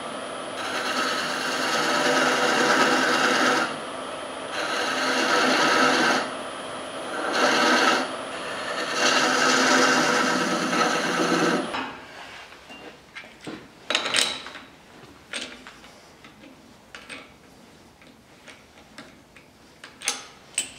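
A turning tool cuts an oak blank spinning on a wood lathe, peeling off shavings in several passes of a couple of seconds each with short breaks between them. The cutting stops about twelve seconds in, and scattered light clicks and knocks follow.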